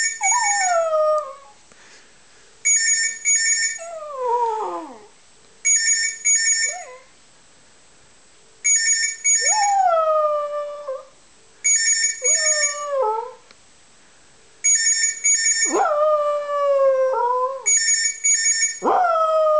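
Jack Russell terrier howling along with an electronic telephone ring that repeats in double bursts about every three seconds. Each howl follows a ring and slides down in pitch, and the last two howls are the longest and loudest.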